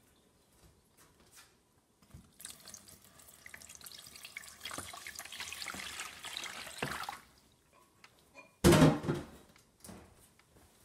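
Water poured from a glass pitcher into a stainless steel bowl, splashing steadily for about five seconds, then stopping. About a second and a half later comes a single loud thump, the loudest sound here.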